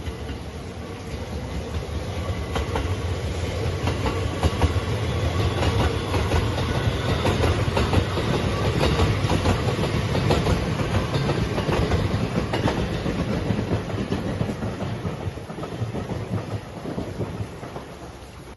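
A train passing close by, its wheels clacking over the rail joints. It builds up over the first few seconds and fades away near the end.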